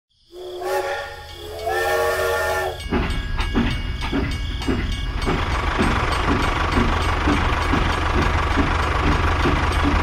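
Steam train whistle blown twice, then rhythmic chuffing, about two to three puffs a second, with a steady steam hiss that takes over from about three seconds in.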